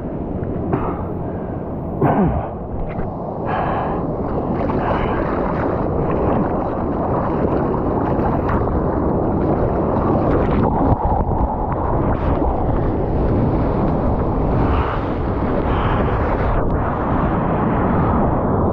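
Ocean surf rushing and churning close to the microphone, a loud, steady wash of water noise with wind on the mic.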